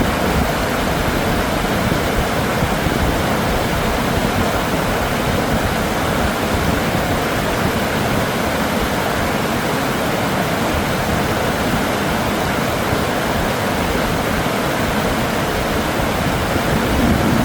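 Flowing river water, a steady, even rush with no breaks.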